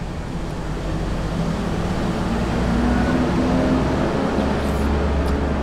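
A motor vehicle's engine running nearby: a steady low rumble that grows louder toward the middle and stays strong near the end.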